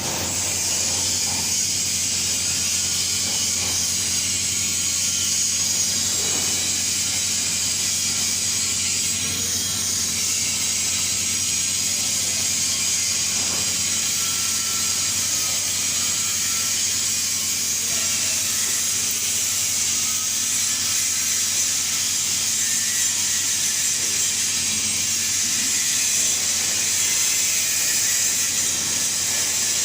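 TIG (GTAW) welding arc burning steadily: an even hiss over a low hum.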